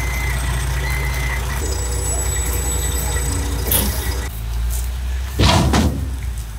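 Diesel roll-off dumpster truck running low and steady, with its reversing beeper sounding at first. Near the end, a loud rustle of plastic trash bags.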